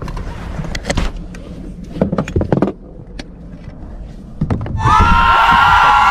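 A few short clicks and knocks of people moving about inside a parked car, over a low hum. About five seconds in, a loud outro jingle of ringing tones starts and becomes the loudest sound.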